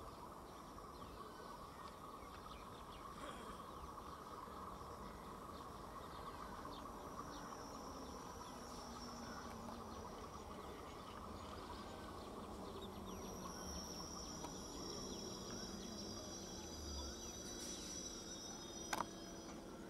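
Faint, steady hum of an approaching electric multiple unit local train, growing slowly louder, with insect-like buzzing over it. A single sharp click comes near the end.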